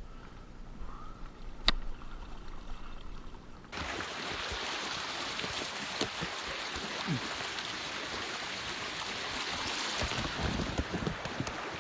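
Fast river current rushing through rapids: a steady hiss of white water heard close up, starting abruptly about four seconds in. Before it, quieter outdoor sound with one sharp click.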